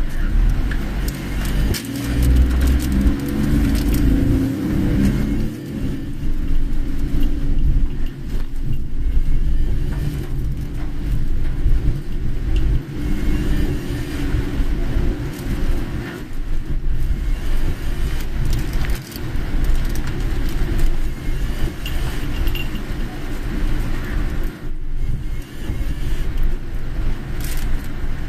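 Road noise inside a moving car on a rain-soaked road: a steady low rumble of tyres and engine, with a lighter hiss above it.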